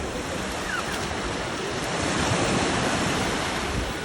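Mediterranean sea surf washing onto the shore, a steady rush that swells a little in the middle, with wind rumbling on the microphone.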